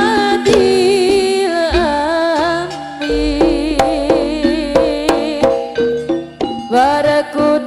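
Live Javanese jaranan ensemble music: drum strokes under a wavering, vibrato-laden melody line, with a deep low tone coming in about three seconds in and fading after six.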